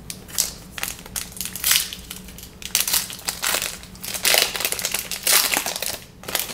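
Trading card pack wrapper being torn open and crumpled, a run of irregular crinkling bursts.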